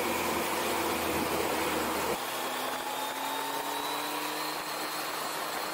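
Wind rushing over the microphone with a motorcycle engine running at road speed. About two seconds in, the low rumble drops away suddenly and a faint engine whine climbs slowly in pitch.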